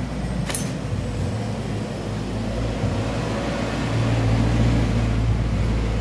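Low, steady rumble of a motor vehicle running nearby. It grows louder over the last two seconds, then falls away. A single sharp click comes about half a second in.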